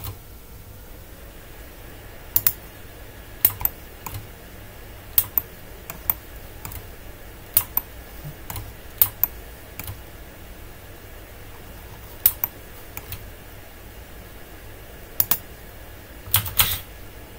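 About twenty scattered computer keyboard and mouse clicks, irregularly spaced, some in quick pairs and a short flurry near the end, over a faint steady hum.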